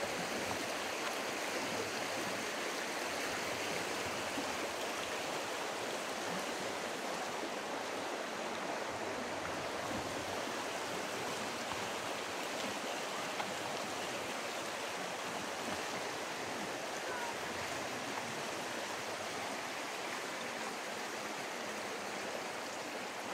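Shallow rocky river running over stones: a steady rush of water, a little fainter near the end.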